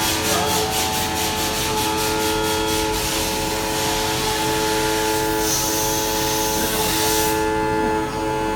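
CNC router spindle cutting wood: a hiss that pulses about four or five times a second, then runs steadily and stops suddenly near the end, over steady held tones.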